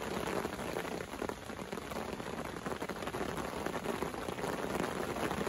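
Heavy rain shower hammering down: a steady, dense hiss of drops.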